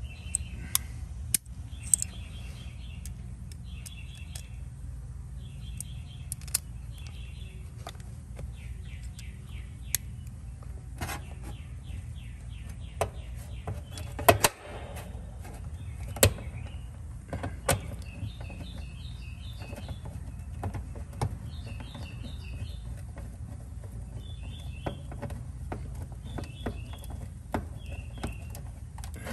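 Sharp metal clicks and taps from a nut driver and a new dual run capacitor being fitted into its mounting bracket, with a few louder clicks in the middle. A bird sings short, repeated phrases of quick chirps throughout.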